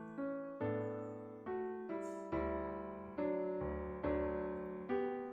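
Piano playing a slow hymn accompaniment, with a chord struck about once a second and left to ring and fade before the next.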